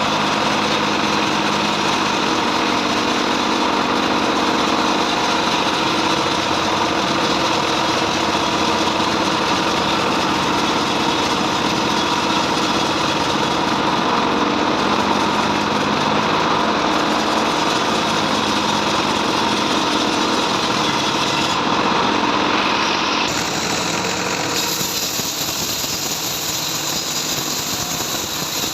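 Bandsaw mill running steadily while sawing trembesi (rain tree) wood. About 23 seconds in, the sound drops a little and changes.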